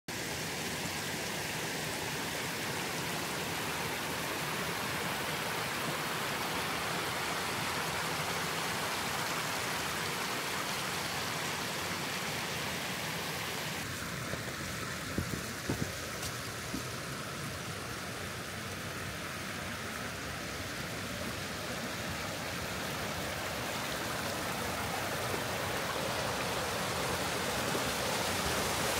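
Waterfall: a steady rush of falling water, its tone shifting slightly about halfway through, with a few faint clicks just after.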